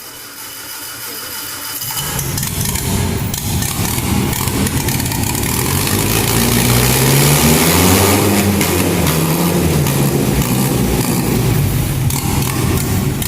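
Freshly overhauled engine started up and running, its speed rising to a rev about halfway through and then dropping back.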